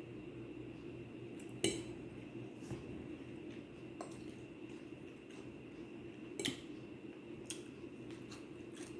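Cutlery clinking against a plate in about six separate light clicks spaced a second or more apart, the sharpest about two seconds in, over a faint steady hum.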